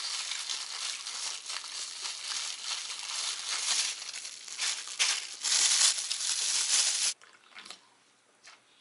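Thin plastic bag crinkling and rustling as it is pulled open and off a takeaway food container, loudest just before it stops abruptly about seven seconds in.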